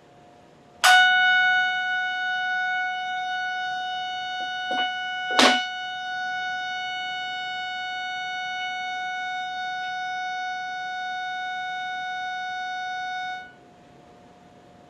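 Steady buzzy tone from a microwave receiver's loudspeaker, the detected microwave signal made audible. It switches on suddenly about a second in and cuts off abruptly near the end, with two short clicks in the middle.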